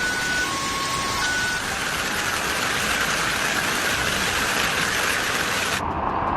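A car alarm sounding two alternating steady tones for about the first second and a half, over a loud, steady rushing noise that continues after the alarm stops.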